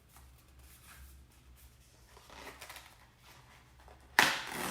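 Packaging being handled during an unboxing: faint scattered rustling, then a sudden loud rustle about four seconds in.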